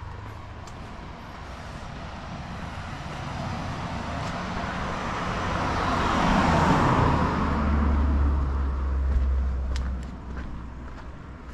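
A car driving past on the street. The tyre and engine noise swells, is loudest a little past halfway with a low rumble, and fades quickly near the end.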